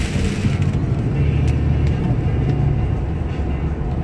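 Road noise inside a car driving on a flooded, rain-soaked highway: a steady low rumble of engine and tyres on wet pavement. The higher hiss of rain and tyre spray drops away about a second in as the car passes beneath an overpass.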